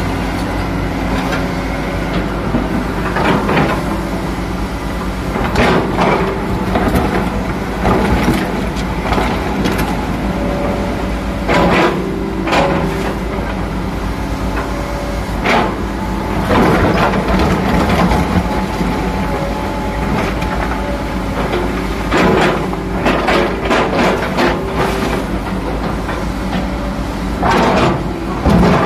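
Komatsu PC200-7 hydraulic excavator's diesel engine running steadily under load. Its steel bucket clanks and scrapes against rock several times as it digs through mud and stones.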